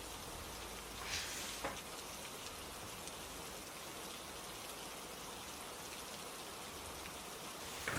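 Steady rain falling, a constant even hiss of drops. A brief soft rustle with a click comes about a second in, and another short rustle near the end.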